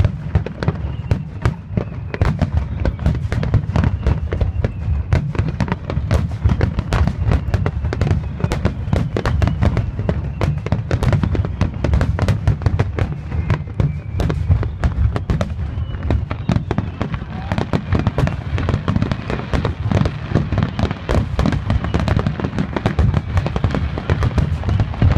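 Aerial fireworks going off in a dense, unbroken barrage: many sharp cracks and bangs every second over a continuous low rumble of booms.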